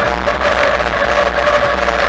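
Bafang BBSHD mid-drive ebike motor running under power with a steady high whine, over a constant rush of wind and road noise.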